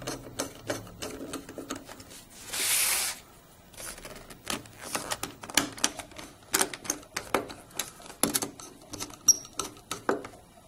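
Small screwdriver tightening the screws of the corner hardware in an aluminium picture frame: a run of irregular metal clicks and ticks as the blade catches in the screw heads and knocks on the metal. There is a brief scraping rustle about two and a half seconds in.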